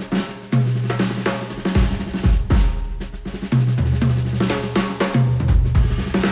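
Music with a drum kit playing a steady beat and held bass notes, played back through Audio-Technica open-back studio headphones and picked up by microphones at the earcups.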